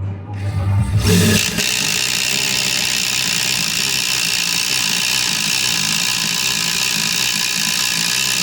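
Ridgid subcompact brushless impact driver hammering steadily as it bores a 5/8-inch Spyder Stinger auger bit through a 4x4 of wood, starting about a second in and running on without a break.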